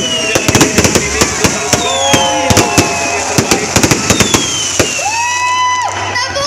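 Fireworks display: a rapid, irregular string of bangs and crackles, with many whistles falling in pitch. About five seconds in, one whistle rises and then holds steady for about a second.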